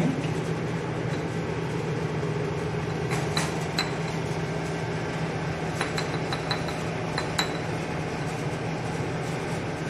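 Steady fan hum of a laminar-flow hood's blower, with a scatter of light glass clinks between about three and seven and a half seconds in as wheat-grain spawn is tipped from one glass bottle into another.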